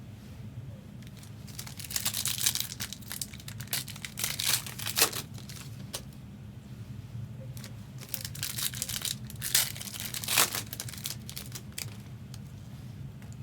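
Trading card pack wrappers crinkling and tearing as packs are opened and the cards handled, in irregular bursts a few seconds apart. A steady low hum runs underneath.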